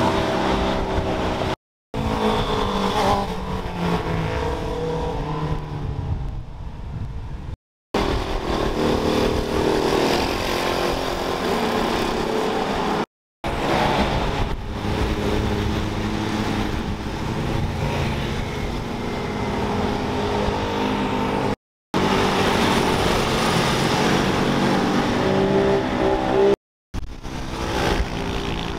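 Fast road vehicles' engines revving hard through a corner as they pass one after another, the pitch climbing and falling with the throttle and gear changes. The sound is cut into six short clips, each ending in an abrupt drop to silence.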